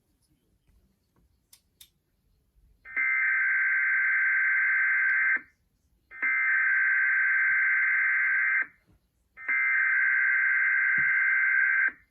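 Emergency Alert System SAME header: three bursts of warbling digital data tones, each about two and a half seconds long and less than a second apart, starting about three seconds in. They are the coded header that opens an EAS test alert.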